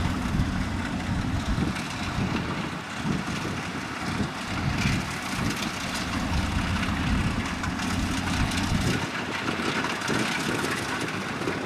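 Kubota DC70 rice combine harvester running as it cuts lodged rice in a muddy field: a steady engine and machinery noise whose deep rumble eases about nine seconds in.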